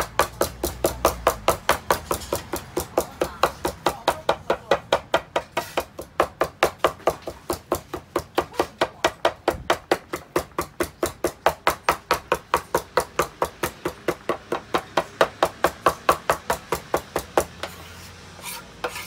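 Kitchen knife chopping shucked shellfish on a wooden cutting board, fast, even knocks at about five a second that stop shortly before the end.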